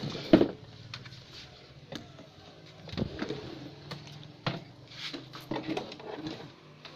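Knocks and clicks of hands handling a CRT television set, with one louder thump just after the start and a faint steady hum underneath.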